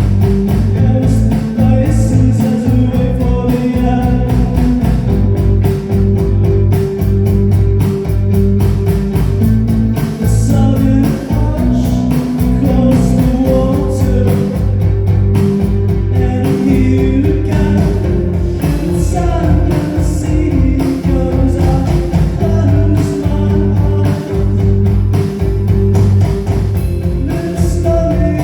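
Live rock band playing a song on guitars with a heavy bass line and a steady drum beat, with a singing voice over it.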